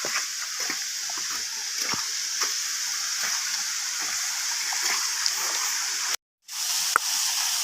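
Steady hiss of rushing water near a waterfall, with scattered small clicks and knocks over it. The sound cuts out completely for a moment about six seconds in, then resumes.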